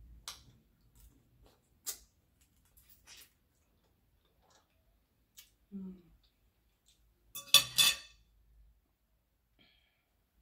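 Eating sounds at a table: scattered soft clicks of chewing and handling food, and a short low hum a little before halfway. About three-quarters through, a quick burst of sharp, ringing clinks, the loudest sound, from a fork striking the glass serving bowl.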